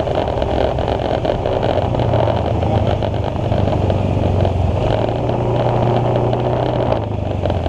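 Scooter engine running steadily under heavy wind rush on the microphone as the scooter rides along. The engine note eases off near the end as the scooter slows.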